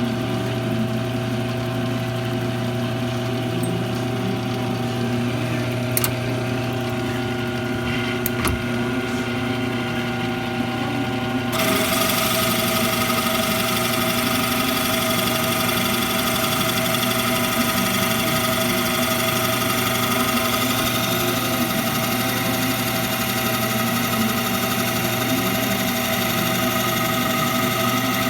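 Metal lathe running with a steady motor hum. About eleven seconds in, a louder, even hiss joins it and keeps going: the tool cutting into the spinning red oak blank.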